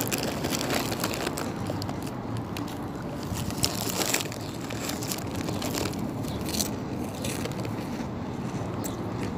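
Saladix snack crackers being crunched and chewed close to the microphone, ASMR-style: irregular sharp crackles over a steady chewing noise.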